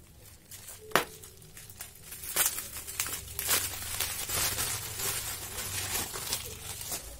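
A sharp scissor snip about a second in, then thin plastic wrapping crinkling and tearing as a packet is unwrapped by hand.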